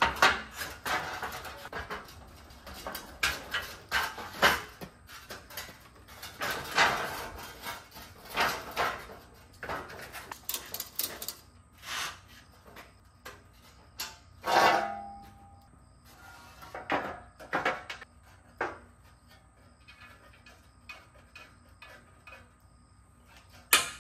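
Irregular metallic clanks, knocks and rattles as small scooters are pushed up a steel ramp onto an aluminium-and-steel hitch-mounted carrier and settled into its rails. The knocks are dense in the first half and grow sparser while the scooters are strapped down.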